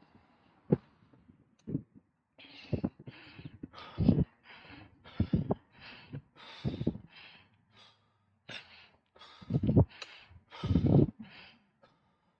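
A cyclist's heavy breathing while riding uphill: quick, hard huffing and puffing breaths about one or two a second, some much louder than others.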